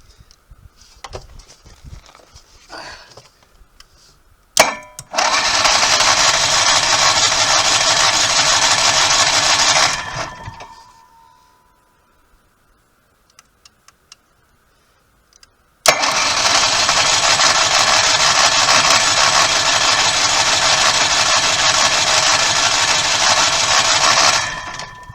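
RV generator engine started twice: each time it kicks in with a sharp click, runs loudly and steadily for several seconds, then winds down over about a second, failing to keep running, which the owner puts down to it being cold after sitting unused since August.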